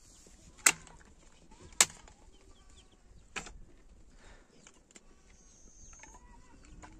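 Sharp knocks, two loud ones about a second apart and a softer third a moment later, over faint clucking of chickens.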